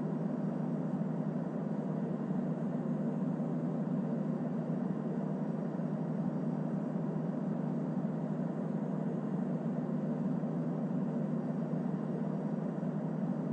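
Steady cabin noise inside a Boeing 787-8 airliner on the ground: an even, unchanging hum of engines and air conditioning.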